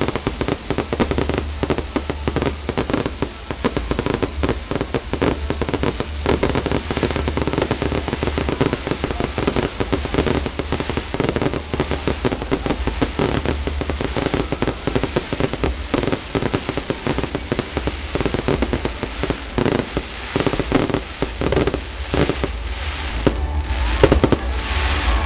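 Fireworks finale: a continuous barrage of rapid bangs and crackling from many shells bursting overhead, thinning out near the end.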